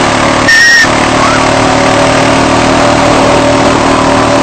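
Quad-bike ATV engine running steadily while riding, with wind rushing over the microphone. A brief high-pitched sound cuts through about half a second in.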